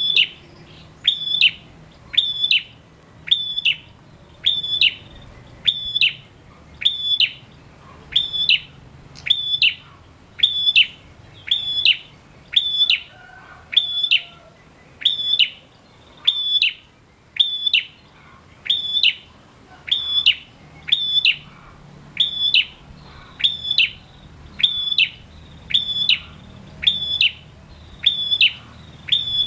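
Male ashy tailorbird (prenjak) singing one sharp, high note over and over at a steady pace of about once a second.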